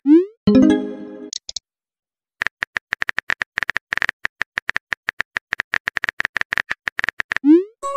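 Phone messaging-app sound effects. Near the start there is a short rising swoosh and then a brief chime of several tones. After a pause comes a steady run of keyboard tap clicks, several a second, for about five seconds, and another rising swoosh near the end.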